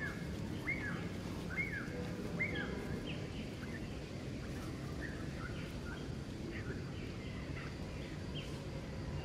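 A bird calling over and over: a short, sharply falling note about once a second for the first few seconds, then fainter, scattered chirps. A steady low outdoor rumble runs underneath.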